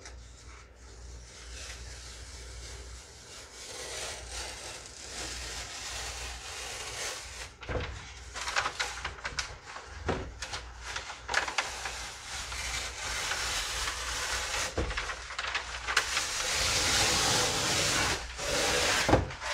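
Paper facing being peeled off a sheet of foam core board: a continuous papery rasping tear, broken by a few sharp cracks, growing louder toward the end.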